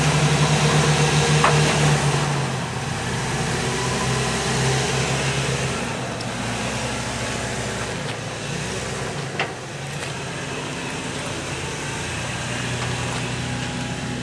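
Toyota 4Runner's engine running at low revs as it crawls over rock ledges, louder for the first couple of seconds and then easing off, with one short sharp click about nine seconds in.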